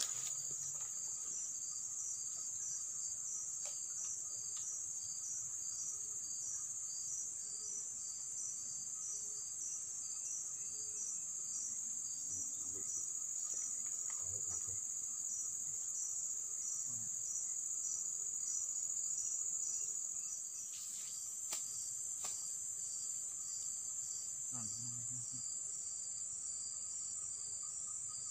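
Steady high-pitched insect chorus, with a second insect call pulsing evenly beneath it. A few light clicks come about three-quarters of the way through, over soft low thuds and rustles.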